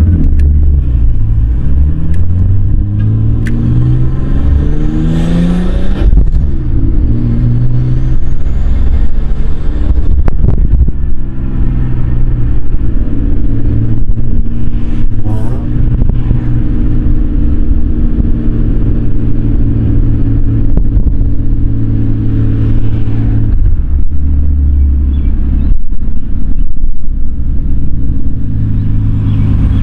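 Nissan Skyline R33's turbocharged RB25DET straight-six with an aftermarket exhaust and HKS muffler, heard from inside the cabin while driving. The engine pitch rises under acceleration, drops sharply about six seconds in at a gear change, climbs again, then holds steady while cruising, dips again a little after twenty seconds and rises near the end.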